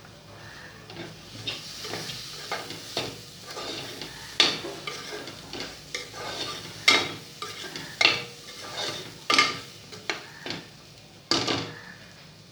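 A spoon stirring and scraping a thick mix of dried toor-dal sandge, dal and masala in a metal pot, with repeated scrapes and knocks against the pot and a light sizzle underneath.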